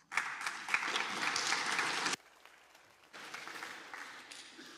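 Congregation applauding with hand claps. The clapping stops suddenly about two seconds in, then a fainter round picks up a second later and fades out.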